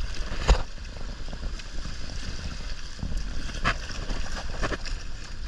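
Sea water sloshing and splashing around a diver in a wetsuit wading and sliding into shallow water, with wind rumbling on the microphone. A few short, sharper splashes stand out about half a second in and again near the end.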